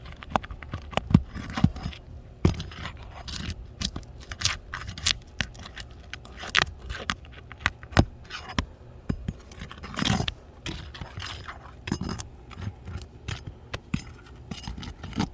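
A metal shingle-removal bar scraping and prying between asphalt shingles that are stuck together, with irregular gritty scrapes and sharp clicks.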